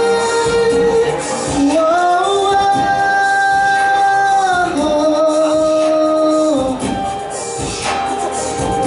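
A male vocalist sings long held notes into a handheld microphone over a backing track. His voice stops about seven seconds in while the backing music carries on.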